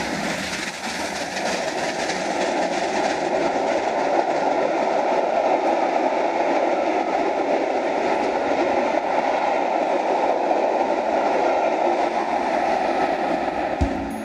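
Full-size steam-hauled passenger train, led by Bulleid Merchant Navy class locomotive 35018, running through a station at speed: a loud, steady rushing of the engine and then its coaches going by on the rails. The noise cuts off suddenly near the end.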